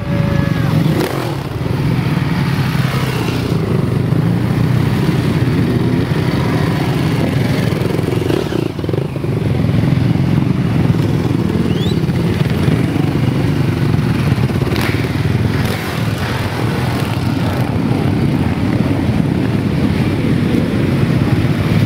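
Many motocross bike engines running together, a pack of dirt bikes running steadily as riders pass close by.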